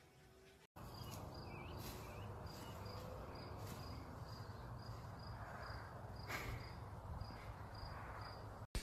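An insect chirping steadily in a grassy meadow, one high note repeated about three times a second, over a low steady rumble with a few short crackles.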